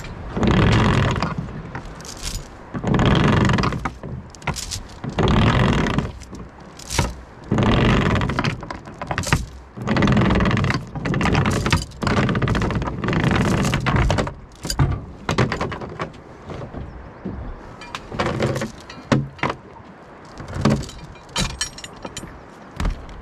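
An anchor line hauled in by hand over a small boat's bow: the line rasps and knocks over the bow in a long run of heavy pulls, about one a second. Near the end the pulls give way to lighter clinks and rattles as the anchor chain comes aboard.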